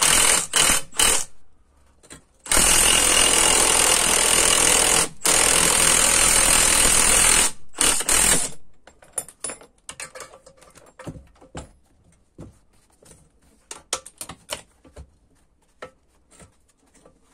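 Cordless impact wrench hammering as it spins out a spring compressor's threaded rod, letting the compressed coil spring off a MacPherson strut. A few short blips come first, then two long runs of a few seconds each with a brief pause between them, then a few more blips. After that come scattered light metal clicks and knocks as the freed spring and the compressor are handled.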